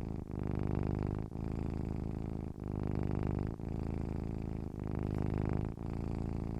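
Domestic cat purring steadily: a low, rapid rumble that dips briefly about once a second as the cat switches between breathing in and breathing out.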